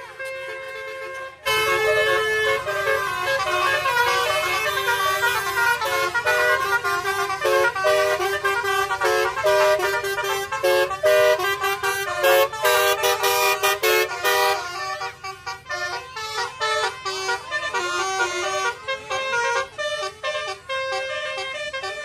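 Multi-tone 'telolet' musical air horn (basuri horn) on a minivan playing a tune of short stepped notes. It starts suddenly about a second and a half in, and is less loud and more broken over the last several seconds.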